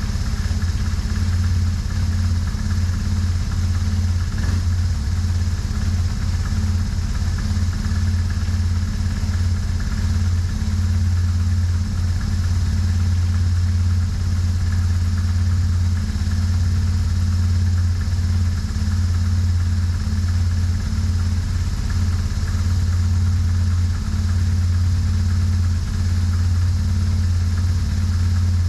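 BMW R1150R's air/oil-cooled boxer twin engine running steadily at an even speed.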